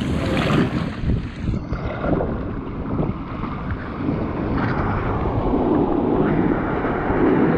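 Waves surging and foaming among rocks at the water's edge, with wind buffeting the microphone.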